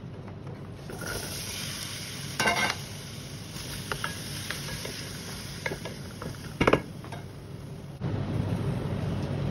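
Spice seeds sizzling in hot oil in a metal pan, with a short loud rush about two and a half seconds in as chopped green beans and potato go in. They are then stirred with a wooden spatula: light scrapes and clicks, and a sharp knock on the pan near seven seconds. About eight seconds in, a low steady rumble starts.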